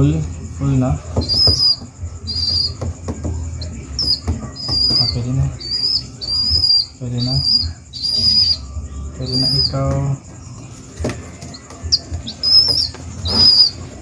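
Baby pigeon begging while being hand-fed: a run of short, high squeaks about once a second, with lower, throatier cries and wing fluttering mixed in.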